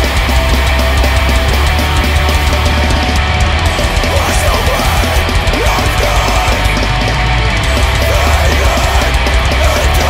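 Blackened metalcore at full, steady loudness: dense distorted guitars and heavy bass over fast programmed drums.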